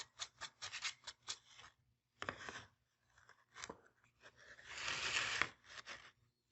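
Sandpaper rubbed by hand over a laser-cut wooden piece: quick back-and-forth strokes, about five a second, for the first couple of seconds, then a few separate scrapes and one longer rasp near the end.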